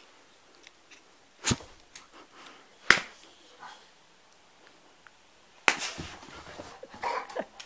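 Dog moving around a plastic toy keyboard: four sharp taps and knocks, the loudest about three seconds in and a quick cluster near the end, with faint sniffing between them.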